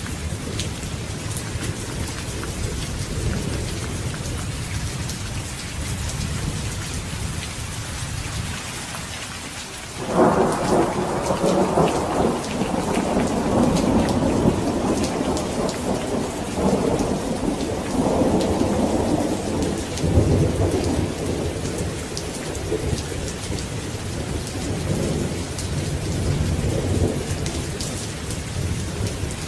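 Steady heavy rain falling, with a sudden thunderclap about a third of the way in that rolls on as rumbling thunder for around ten seconds, swelling again twice before fading back under the rain.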